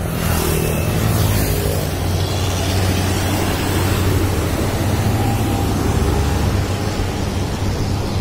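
Isuzu FSR rigid tanker truck's diesel engine running as it drives past close by, a strong steady low drone that eases off near the end. A moped passes close in the first second or so.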